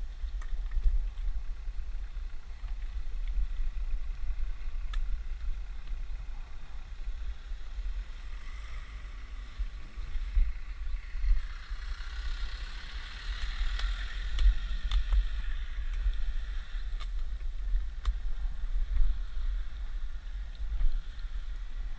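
Wind buffeting the microphone of a camera on a moving bicycle, a constant uneven low rumble with occasional clicks and knocks. In the middle a hiss swells and fades over several seconds, fitting an oncoming car passing the bike.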